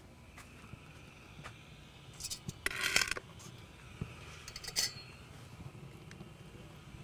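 A ceramic plate set down and slid on a stone counter, with a few light taps and clinks. The loudest scrape comes about three seconds in, and a shorter one follows near five seconds.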